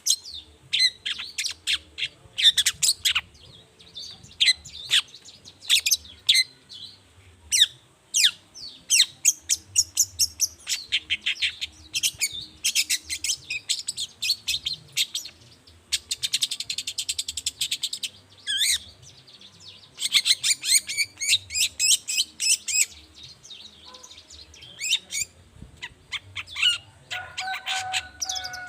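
Long-tailed shrike (cendet) singing: rapid runs of short, high chirping notes in bursts with brief pauses. Near the end comes a short, steady, lower tone.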